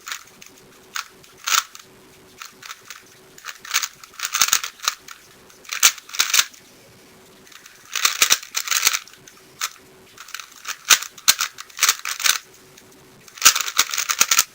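Plastic 3x3 speedcube turned fast in a timed solve: quick runs of sharp clicking and clacking, broken by short pauses.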